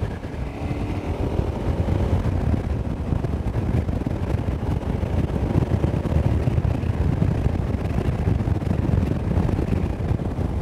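KTM 990 SMT's V-twin engine running while being ridden along a road, heard under a steady low rumble of wind and road noise. The engine note rises faintly in the first second or two as the bike pulls away.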